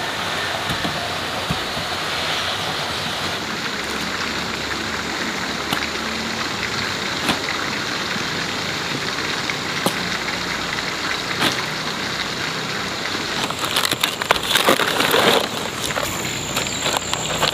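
A steady rushing background noise with a few soft clicks, and about fourteen seconds in, a couple of seconds of dense rustling and crackling.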